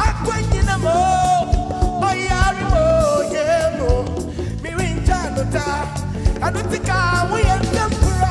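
Live African gospel band playing, with a voice singing long, wavering notes over a steady bass and drum groove.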